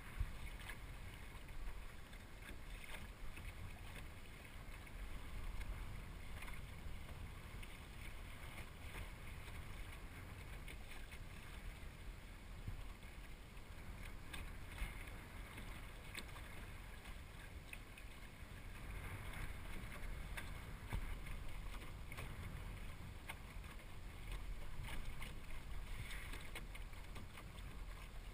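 Water washing and lapping along the hull of a small El Toro sailing dinghy under sail, a steady hiss with faint splashes, over a low rumble of wind on the microphone.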